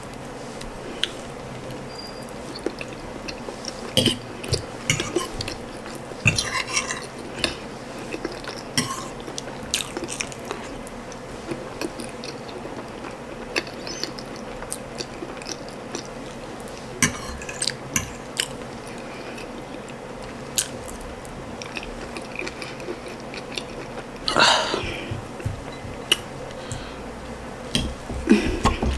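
Close-miked eating sounds: chewing and wet mouth smacks from eating ndole and soft boiled plantain, with irregular clicks of cutlery against a plate.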